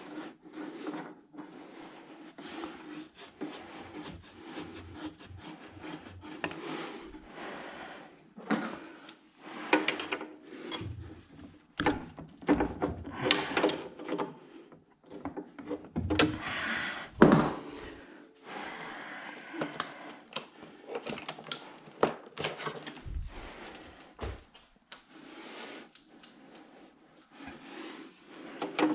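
Irregular knocks, clunks and scraping of wood and tools being handled, with a steady hum underneath; the sharpest knock comes a little past the middle.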